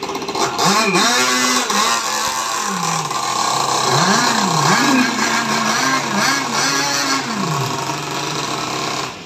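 Small gasoline outboard motor on a racing boat revving up and down, its pitch rising and falling several times. It starts suddenly and cuts off suddenly near the end.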